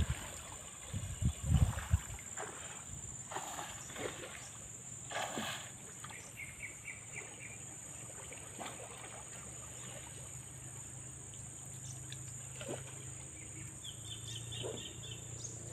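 Riverside ambience with a steady high insect drone, and short rapid chirping trills from a bird or insect about six seconds in and again near the end. A few low thumps and rumbles sound in the first two seconds.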